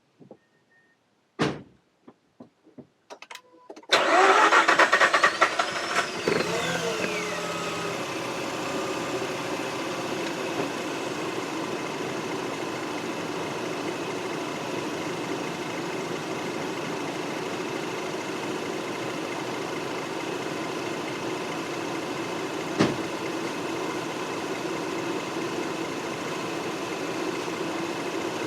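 High-mileage Mazda RX-8's two-rotor 13B Renesis rotary engine: a few clicks, then about four seconds in the engine cranks and fires, settling within a few seconds into a steady idle. A single sharp click sounds later during the idle.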